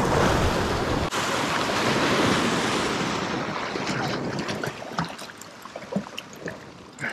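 Ocean surf washing against a rock ledge, with wind buffeting the microphone. The rushing fades after about three seconds, leaving a few scattered small clicks.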